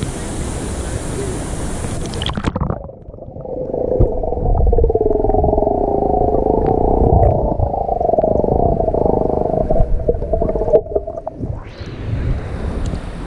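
Rushing river water, then about three seconds in the sound turns muffled and deep as the camera's microphone goes under the water. It stays underwater for about nine seconds and comes back up near the end.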